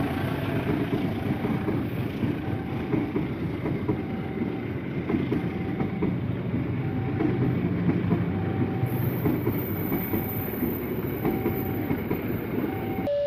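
Indonesian passenger train coaches rolling past on the rails, with a dense steady wheel rumble and clatter. A faint short high tone sounds about every second and a half.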